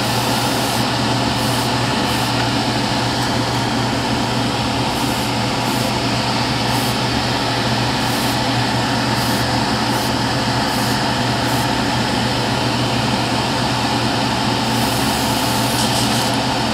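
Spray booth extractor fan running steadily with a low hum. Over it, an airbrush gives about a dozen short hisses of air as its trigger is pressed and released.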